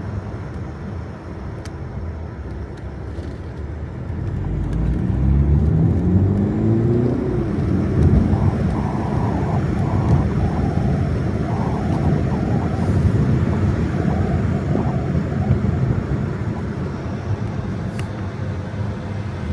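Car driving, with engine and road rumble; about five seconds in the engine note rises as the car accelerates, then settles into a steady rumble.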